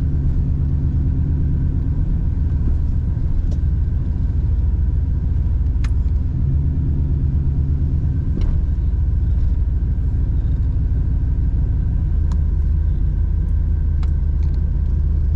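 Truck engine running with a steady low rumble, a few light clicks over it.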